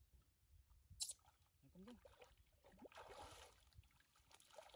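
Faint splashing and sloshing of water around a person wading chest-deep, with a sharp splash about a second in and more splashing around the middle and near the end.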